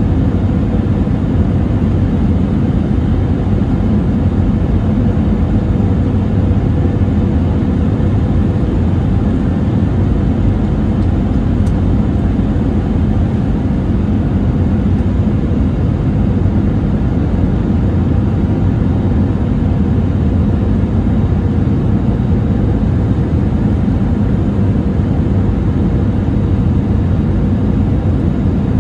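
Airbus A320-200's jet engines and rushing airflow heard from inside the passenger cabin on descent: a steady, unbroken low rumble with a faint steady hum above it.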